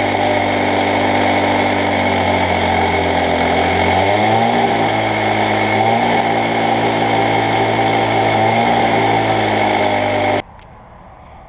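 Two-stroke gas-powered cut-off saw running at full speed, its steel cutoff wheel grinding slowly through a truck's steel leaf spring. The engine pitch dips a few times as the wheel bites under load, and the sound stops abruptly near the end.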